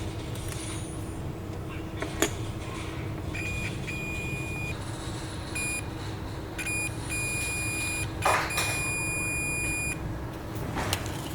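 Electronic beeper sounding a single high tone in on-off beeps of irregular length, from a few seconds in until near the end, over a faint steady hum. A sharp click comes about two seconds in, and a short rustle near eight seconds.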